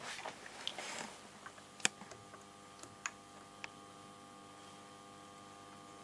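A 1947 Astor Mickey valve radio starting to come alive from its speaker as its supply voltage is brought up: a rush of static with a few sharp crackles, the loudest about two seconds in, then a faint steady hum. It is a sign that the set is beginning to work.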